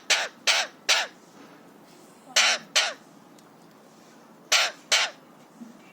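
Alexandrine parakeet screaming: loud, harsh calls in quick groups, three at the start, two about two and a half seconds in, and two more near the end.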